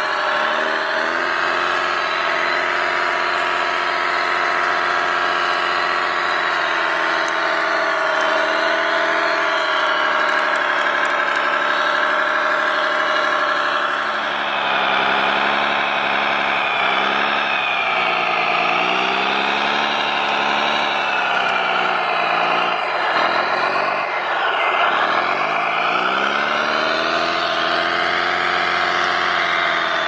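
Radio-controlled Caterpillar D9 bulldozer model running with a steady engine-like drone, then rising and falling in pitch again and again from about halfway through as it pushes a blade-load of mud and gravel.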